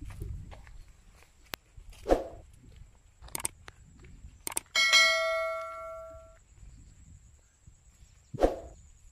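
Subscribe-button animation sound effect: a couple of clicks, then a bright bell ding that rings out and fades over about a second and a half. Two footstep thumps on the earth path, about two seconds in and near the end.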